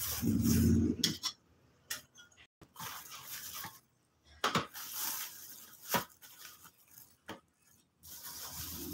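Clear plastic bag rustling and crinkling in irregular bursts as it is handled and wrapped around a portable butane stove, with a few sharper clicks.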